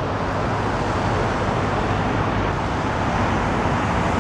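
Steady outdoor background noise: a broad rush with a low rumble beneath it, growing slowly louder, like street traffic or wind on the microphone.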